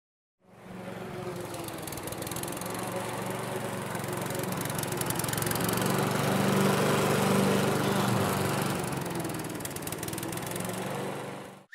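Lawn mower engine running steadily, swelling toward the middle and easing slightly, then cutting off abruptly near the end.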